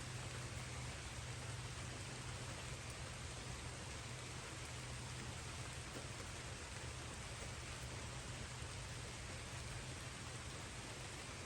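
Light rain falling steadily, an even hiss of drops with a steady low hum underneath.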